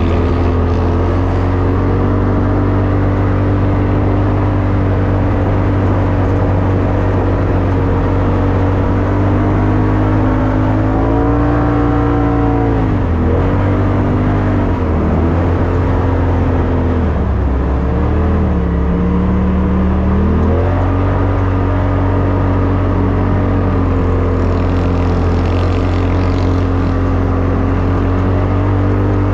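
2021 Polaris RZR Turbo S Velocity's turbocharged twin-cylinder engine running at a steady pitch while driving over sand dunes, heard from inside the cab. Near the middle the engine note rises briefly, then falls and runs lower for a few seconds before climbing back to its earlier pitch.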